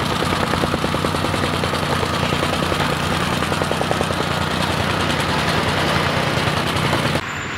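A nearby engine running steadily, with a fast pulsing rattle; it stops abruptly near the end.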